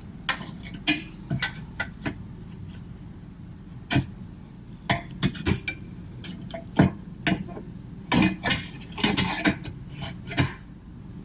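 Irregular metallic clinks and knocks of hand tools against steel suspension parts while an aftermarket camber control arm is worked into its mount, coming in quicker clusters about halfway through and again near the end.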